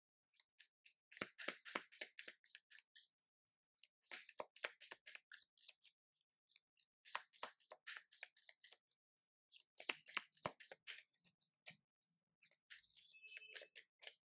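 A deck of tarot cards being shuffled by hand: quick runs of sharp card slaps, about five a second, in five bursts with short pauses between.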